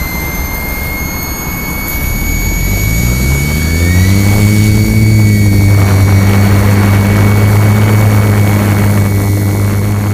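Aircraft engines spooling up for takeoff: a hum that rises in pitch and settles about four or five seconds in into a loud steady drone, over a thin high whine.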